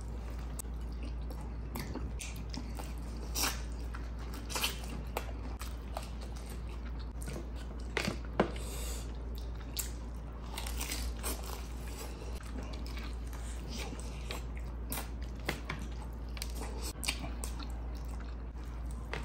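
A person eating chicken with their hands close to the microphone. Bites into crispy fried chicken and chewing, with scattered crunches and sharp crackles; a few louder crunches come about a third and about halfway through.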